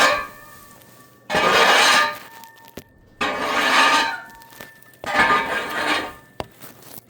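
Three scraping strokes, each about a second long and starting sharply about every two seconds, with a faint metallic ring: the top layer of frozen bedding and thrown-out feed being scraped off a livestock pen.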